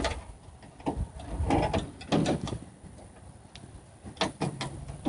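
Short clicks and knocks in small clusters, from hands and tools working on the parts of a truck door's inner panel.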